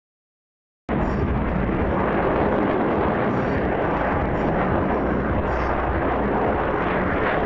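Jet engine noise from Blue Angels F/A-18 Hornet jets flying in formation overhead, a steady heavy rush and rumble. The sound cuts out completely for about the first second, then comes back.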